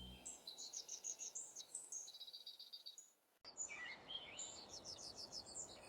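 Small birds chirping and twittering in quick runs of high notes, with a brief total silence about three seconds in where the recording cuts.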